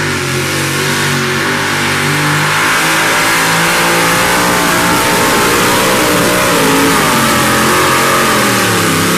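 Supercharged V8 of a modified pulling vehicle running flat out while dragging a weight-transfer sled down a dirt pulling track. The engine note wavers under load and sags slightly near the end.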